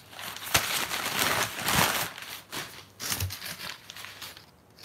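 Crumpled newspaper packing rustling and crinkling as it is pulled out of a cardboard box, loudest in the first two seconds, then thinning to fainter rustles.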